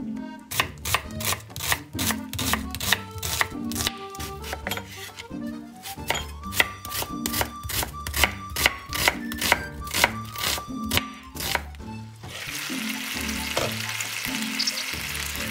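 A chef's knife slicing an onion on a wooden cutting board, in a quick steady run of crisp strokes against the board. About twelve seconds in, this gives way to chicken drumsticks sizzling in a frying pan, a steady hiss.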